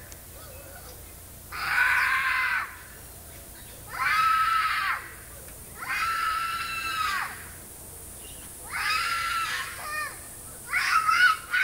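A little girl screaming in distress for her mum: four long wails about two seconds apart, each rising and then falling in pitch, followed near the end by quicker, choppier cries.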